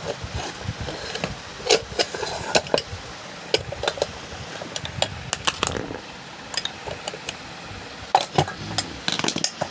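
Irregular metallic clicks, knocks and scrapes of a ceiling fan's motor being worked apart by hand.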